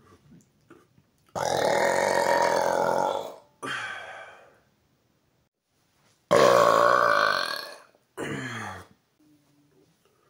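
A man's long, loud, deliberate burps: two of about two seconds each, each followed a moment later by a shorter one.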